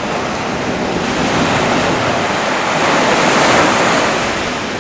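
Storm surf: waves breaking and washing up the shore, the rush swelling to a peak about three and a half seconds in and then easing, with strong wind buffeting the microphone.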